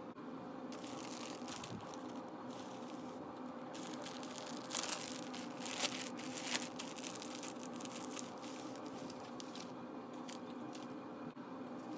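Clear plastic bag crinkling as hands handle it and take a silk scarf out, with a few louder crackles about five to seven seconds in. A steady low hum runs underneath.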